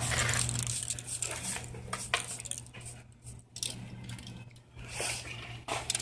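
Light clinks and scrapes, like hard objects knocking together, over a steady low hum.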